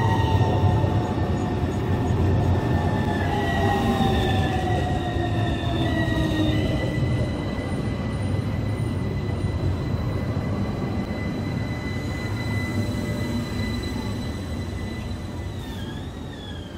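A modern low-floor electric tram rolls slowly past close by, with a low wheel-on-rail rumble and the whine of its electric drive. The whine falls in pitch over the first few seconds as the tram slows, then holds on steady high tones, and the sound fades near the end as the tram moves on.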